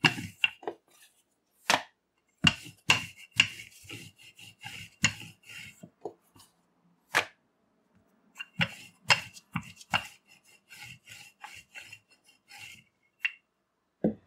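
Wooden rolling pin rolling out roti dough on a stone countertop: a run of irregular knocks and rubbing as the pin goes back and forth, pausing about seven seconds in, then lighter knocks and handling of the dough.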